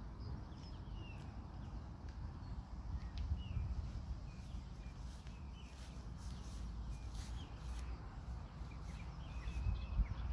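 Birds chirping now and then over a steady low rumble.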